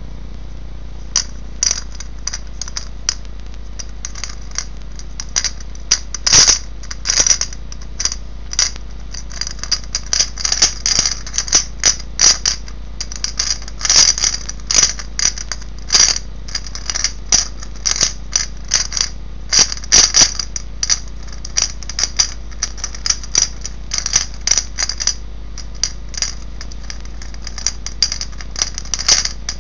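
White DoTS gravity puzzle being tilted and turned in the hand: its loose pieces click and rattle inside the clear sphere in irregular flurries of light clicks. A steady low hum runs under it.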